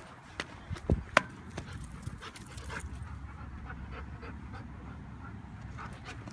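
German shepherd puppy panting close to the microphone, with a few sharp knocks about a second in as the camera is bumped.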